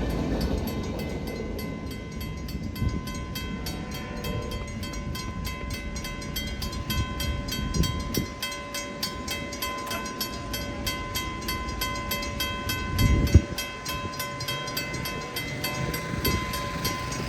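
Train rolling past a grade crossing and moving away, its wheels rumbling on the rails with a few heavier clunks. Over it the crossing's warning bell keeps ringing in a rapid, even rhythm.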